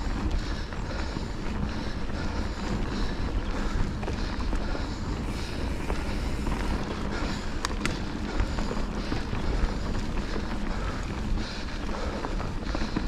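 Wind buffeting the microphone during a fast run, a steady low rush throughout with a few sharp clicks, about eight seconds in and again near the end.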